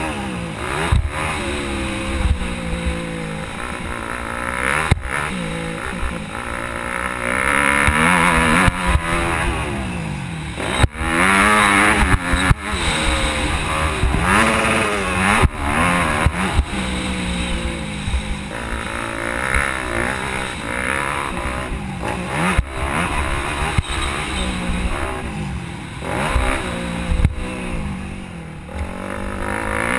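Yamaha YZ250F four-stroke single-cylinder motocross engine revving up and dropping back over and over as the rider works the throttle and gears around a dirt track, recorded onboard with wind rumble on the microphone. Several sharp knocks cut through the engine sound as the bike crosses bumps.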